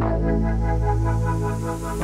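Background music: an electronic track with sustained synthesizer chords over a steady pulse.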